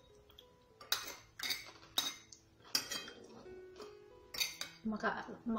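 Metal spoon clinking and scraping against a porcelain plate while scooping rice, about five sharp clinks spread out over a few seconds.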